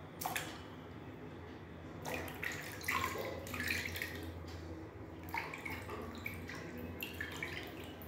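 Water from a wall tap running into a plastic bucket, with hands scooping and splashing water several times at irregular intervals.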